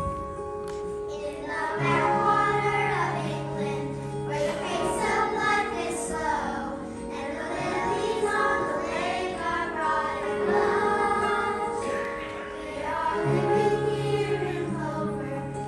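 A group of children singing a musical-theatre song together over instrumental accompaniment. A short instrumental passage opens it, and the voices come in about two seconds in.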